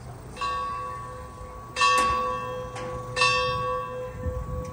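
Metal struck three times, about a second and a half apart, each strike ringing on like a bell.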